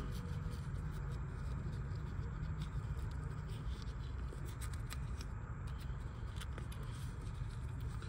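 Faint rubbing, scuffing and light ticks of fingers working a rubber boot over a power-seat switch, rolling its edges up, over a steady low hum.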